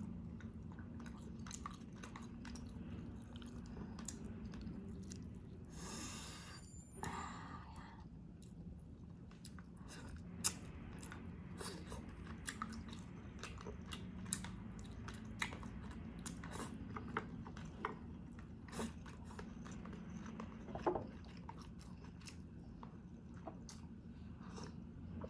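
Close-miked chewing and mouth sounds of a person eating pompano fish, with frequent small clicks and smacks and a brief louder noisy sound about six seconds in. A low steady hum runs underneath.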